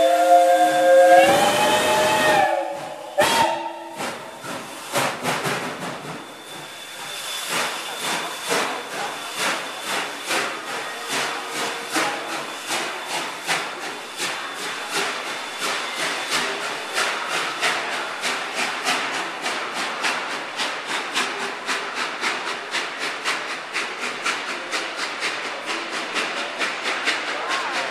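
Steam locomotive's whistle sounds a chord for about two seconds, sliding down as it closes, followed by a short second blast. The locomotive then starts away with exhaust chuffs that begin slow and quicken steadily, over hissing steam.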